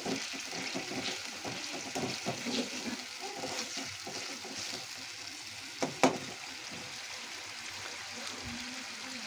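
Tomato-onion masala frying in a steel pan, stirred with a steel spoon that scrapes the pan; a single sharp clink of spoon on pan about six seconds in.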